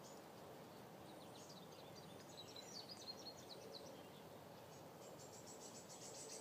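Faint outdoor ambience with small birds chirping and twittering in short high calls. About five seconds in, a rapid, evenly pulsing high trill starts and keeps going.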